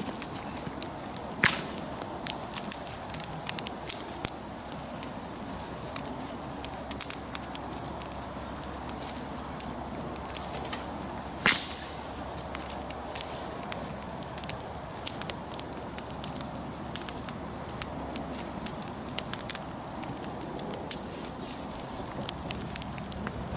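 Campfire of dry branches crackling, with sharp pops all through and two louder ones, about a second and a half in and near the middle.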